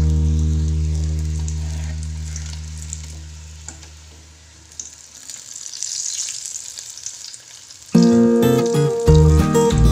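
Vegetable spring rolls deep-frying in hot oil in a wok, a steady sizzle, with a couple of clicks as a metal spatula turns them. A guitar chord fades out over the first few seconds, and guitar music comes back loudly about 8 s in.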